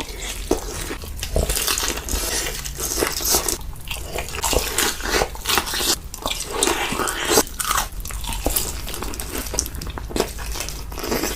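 Close-up eating sounds: a person biting and chewing crunchy food, with dense, irregular crunches throughout.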